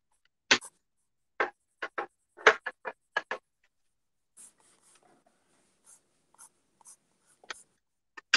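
White pencil sketching on paper in quick, scratchy strokes: a run of sharp strokes in the first few seconds, then fainter, lighter shading strokes. A sharp tap comes at the very end.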